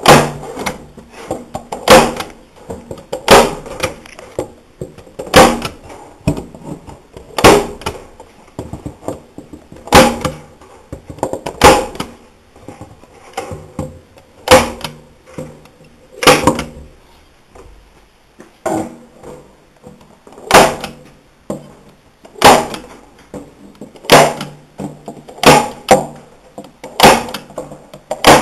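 Sharp single blows driving fasteners into the wooden boards of a top bar beehive, about one every second or two, some louder than others, each with a short ring.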